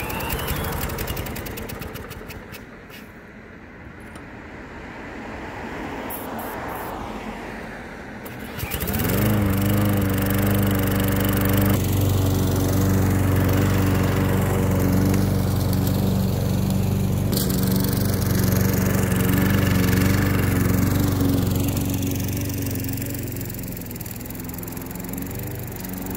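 A gasoline walk-behind lawn mower's engine being spun over by a cordless drill (a drill start), cranking unevenly for about eight seconds before it catches, rises in pitch, and settles into a steady run.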